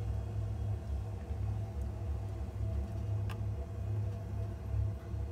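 Steady low hum, with one faint click about three seconds in.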